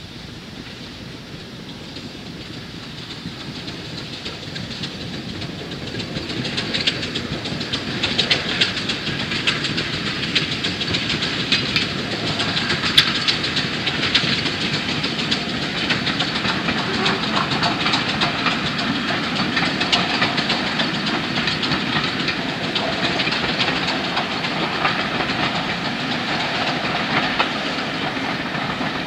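BR Standard Class 5 4-6-0 steam locomotive and its passenger coaches passing. The sound grows louder over the first six or seven seconds, then holds steady with a hiss and the clickety-clack of wheels over the rail joints as the coaches roll by.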